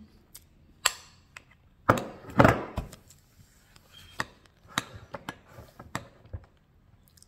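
Metal spoon clicking and scraping against a ceramic bowl while eating, with a louder, longer noisy sound about two seconds in.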